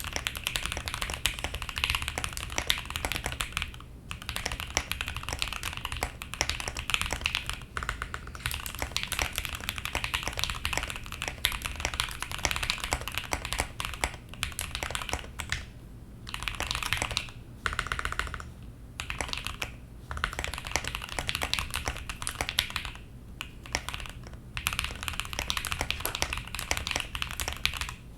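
Rapid, dense clicking in runs of a few seconds, broken by short pauses.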